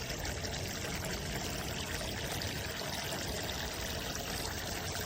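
Water running in a steady stream from an electric toy kitchen sink's faucet into its basin.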